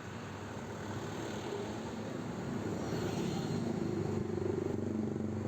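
Diesel engine of a coach bus approaching on the road, its low rumble and road noise growing steadily louder, with no horn sounded.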